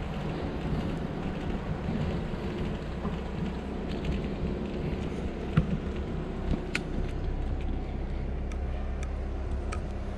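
Steady rumble of a bicycle rolling over asphalt with wind on the microphone, and a few sharp clicks from about halfway through.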